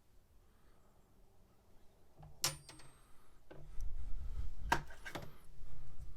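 Steel adjustable pliers handled on a workbench: a sharp metallic click about two and a half seconds in, then low rubbing and handling noise with two more clicks near the end.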